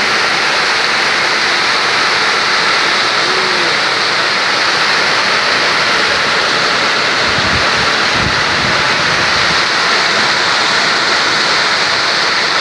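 Heavy rainstorm pouring steadily in a dense, even hiss, with a brief low rumble about seven seconds in.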